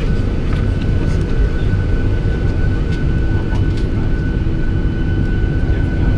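Steady cabin noise inside a Boeing 737-800: a constant low rumble with a thin, steady high whine over it. A few faint ticks and rustles come through.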